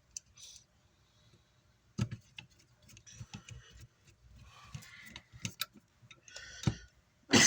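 Irregular small clicks, taps and light scraping from hand work with tools and parts on a workbench, with a sharper knock about two seconds in.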